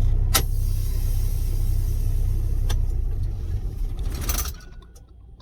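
Air-brake truck's engine running steadily at idle, with a sharp click about half a second in and another near three seconds. A short hissing burst comes just after four seconds, then the engine sound cuts off abruptly.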